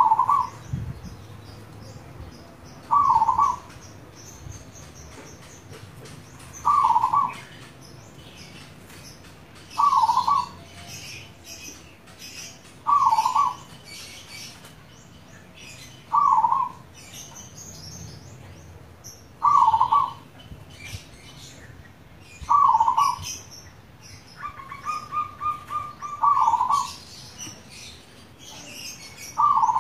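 Zebra dove (perkutut) singing its cooing song, a short loud phrase repeated about every three seconds, with one longer drawn-out phrase near the end. Fainter high chirps of other small birds run underneath.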